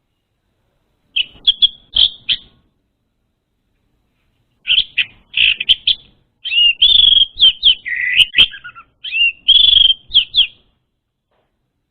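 Orange-headed thrush song: quick, high chirping and whistled notes in three bursts with silent gaps between them, the longest and fullest phrase coming after about six seconds.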